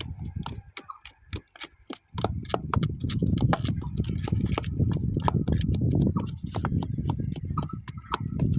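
Many sharp, irregular clicks and taps, several a second, over a low rumble that drops out for a moment about a second in.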